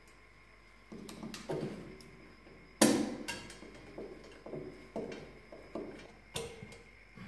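Knocks and metallic clatter from a white metal clothes-drying rack being handled, about two a second after a quiet first second, the loudest about three seconds in.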